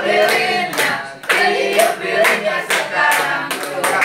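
A group of people singing a birthday song together and clapping along in time, about three claps a second.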